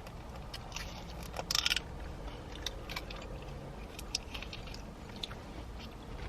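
A person chewing a chicken McNugget close to the microphone: soft wet clicks and smacks, with a short crunchy rustle about a second and a half in.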